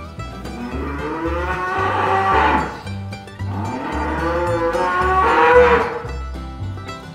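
A young Girolando heifer calf mooing: two long, loud calls, each rising in pitch. Background music with a steady beat runs under them.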